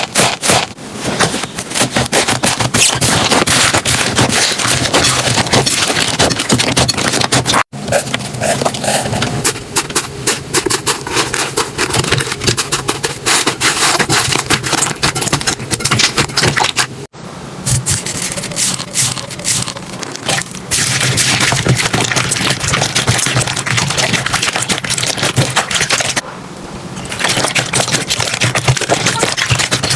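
Slime being worked by hand, a dense run of crackling pops and clicks, broken by two sudden cuts, about a quarter and just over half of the way through.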